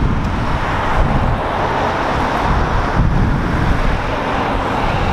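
Road traffic going by on a busy street, with wind rumbling on the microphone.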